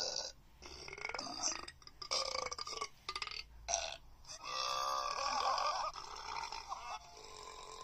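A person burping repeatedly: a string of short burps and one long, drawn-out burp about halfway through.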